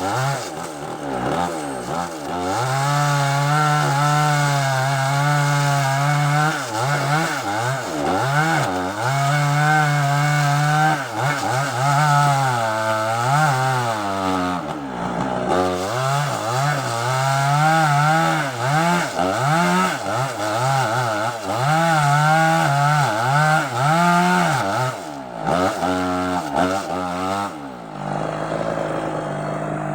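Small two-stroke chainsaw cutting sengon wood, its engine held at high revs. The engine pitch dips and recovers several times as it works through the cut, and it drops to a lower, slower running near the end.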